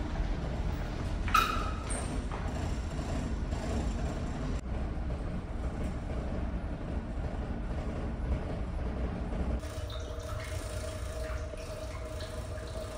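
Steady low rumble of a car ferry's engines and ventilation heard inside the ship. A brief sharp ring sounds about a second and a half in. About ten seconds in, the rumble softens and a steady hum takes over.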